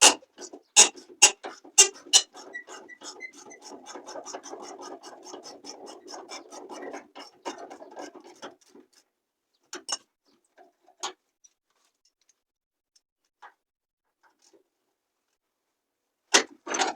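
Ratchet wrench clicking as a door-hinge bolt is loosened: a few loud single clicks, then a fast, even run of clicks for about six seconds, then a few scattered clicks.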